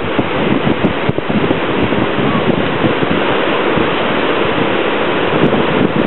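Pacific surf breaking and washing up the beach in a steady wash of noise, with wind buffeting the microphone.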